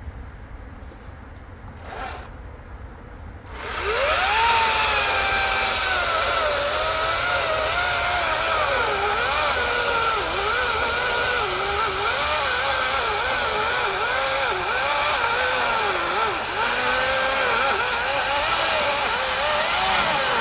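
Cordless battery chainsaw starting about three and a half seconds in with a quick rising whine, then cutting into a thick log, its motor pitch dipping and recovering over and over as the chain is loaded in the cut.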